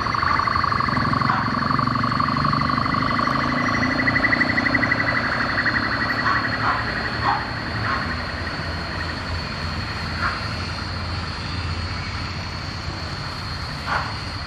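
Ilyushin Il-76T's four Soloviev D-30KP turbofans whining over a low rumble as the freighter flies away on approach, loudest at first and easing off after about five seconds. A few short, sharp sounds break in during the second half.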